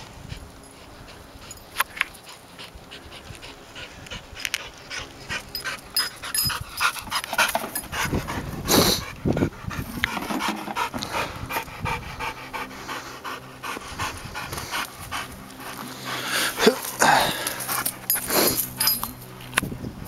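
Pit bull–Dalmatian mix dog panting, a quick run of short breaths.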